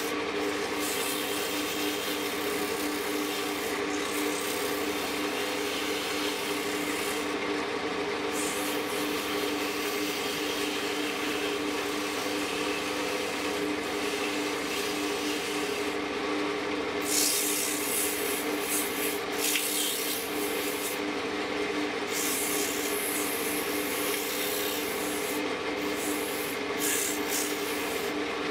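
Hand sanding on a wood lathe: sandpaper pressed against a spinning turned wooden spindle gives a rough rasping hiss that swells and drops away several times as the paper is pressed, lifted and moved along the piece. Under it the lathe's motor runs with a steady hum.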